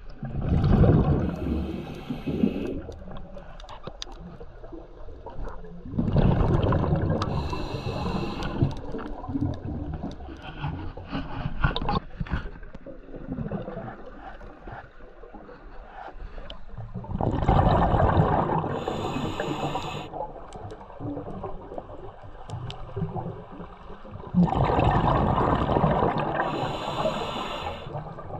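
Scuba diver breathing through a regulator underwater: four breaths, several seconds apart, each a loud burble of exhaled bubbles with a short hiss near its end.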